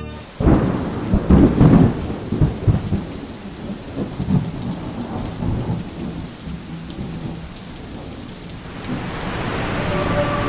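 Thunderstorm: loud cracks and rumbles of thunder in the first few seconds, then steady rain.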